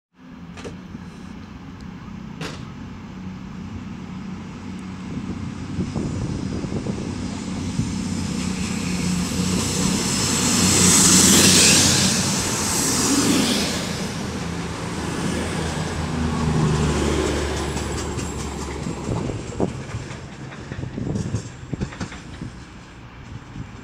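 CrossCountry Class 220 Voyager diesel multiple unit passing through, its underfloor diesel engines running with a low steady tone and its wheels hissing on the rails. It grows louder to a peak about halfway through as it goes by, then fades as it moves away.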